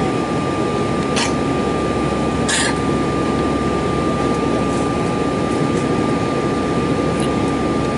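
Airliner jet engines at climb power after takeoff, heard from inside the cabin: a steady, loud drone with a thin, constant whine above it. Two brief hissing sounds come about a second and two and a half seconds in.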